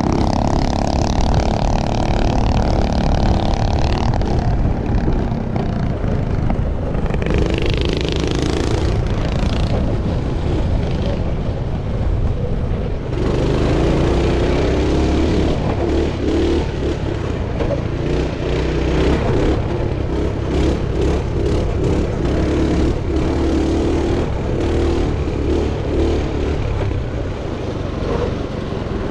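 Pit bike's small single-cylinder engine running under throttle, its pitch rising and falling as the rider opens and closes the throttle: higher for the first few seconds, then a lower, choppier note through the middle.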